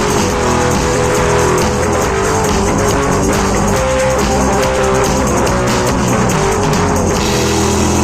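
Instrumental rock music with drum kit and guitar playing a steady beat; a little after seven seconds in the drums drop out and a low chord is left ringing.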